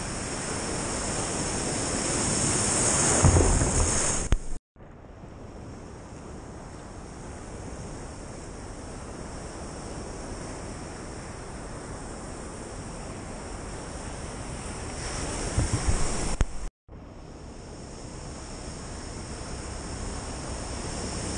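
Ocean surf washing around a camera held at water level, with wind buffeting the microphone in louder rumbles twice. The sound cuts out abruptly about four and a half seconds in and again about seventeen seconds in; between the cuts it is quieter and duller.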